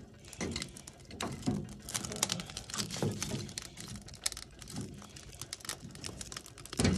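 Small split sticks of wood knocking and clattering against each other and the firebox as they are fed by hand through the stove-top lid opening of an antique wood cookstove, in irregular clunks with a few heavier thuds, over light crackling from the coals.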